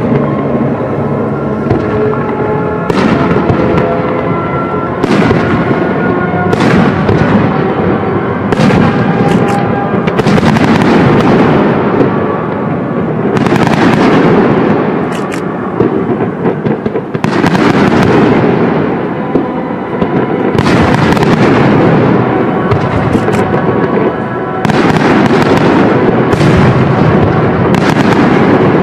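Fireworks display: aerial shells launching and bursting one after another every second or few, with crackling in between, over music.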